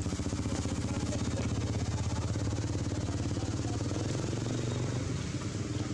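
A small engine idling steadily, with a fast, even putter.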